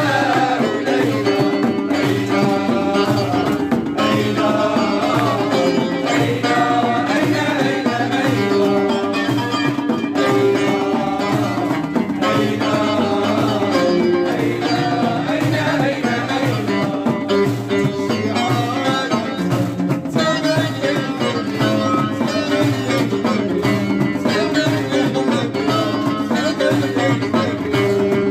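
Folk music played live, with hand drums keeping a steady rhythm under a wandering melodic line.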